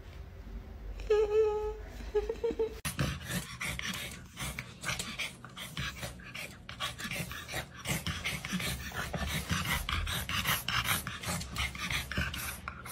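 A kitten gives a few short, high meows, then a long run of rapid, irregular scratchy clicks and breathy rasps follows.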